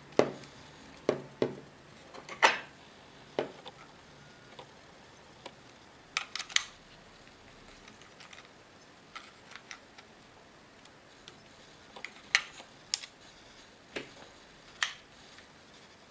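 Irregular sharp clicks and taps of the plastic parts of a Remington cordless hair clipper being handled and fitted back together during reassembly, some coming in quick pairs or threes.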